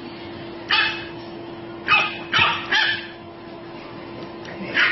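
A puppy yapping in short, high-pitched barks: one about a second in, three in quick succession in the middle, and one more at the end.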